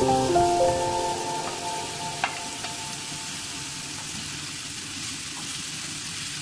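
Chicken, onion, tomato and green chilli sizzling steadily in a frying pan as a spatula stirs them, with a single click about two seconds in. Background music fades out over the first two seconds.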